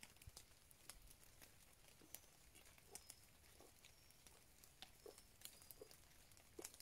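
Near silence: faint forest ambience with scattered light ticks and a few brief high chirps.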